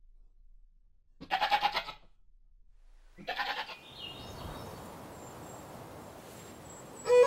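A goat bleats twice, two short quavering bleats about two seconds apart. Then a faint hiss with a slowly rising run of high tones, and violin music starts right at the end.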